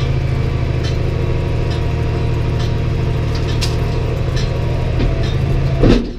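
New Holland T6030 tractor's diesel engine running steadily, heard from inside the cab, with scattered light clicks and rattles and a brief louder swell just before the end.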